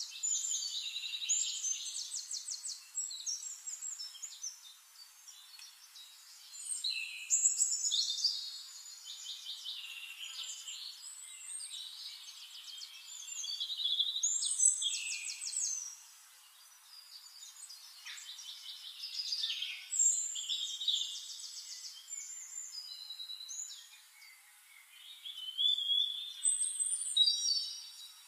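Small birds singing in high, quick trills and chirps, in phrases a few seconds apart, with nothing low underneath.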